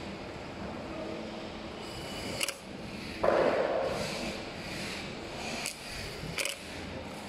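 Tool work on an electric scooter's rear fender: a few sharp clicks and a louder scraping rustle about three seconds in, as parts and tools are handled around the taillight.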